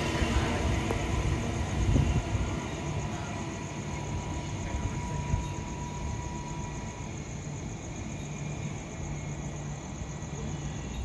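A train rumbling away into the distance, its noise fading steadily, with crickets chirping steadily.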